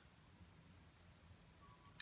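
Near silence: faint background ambience, with a single small click at the very end.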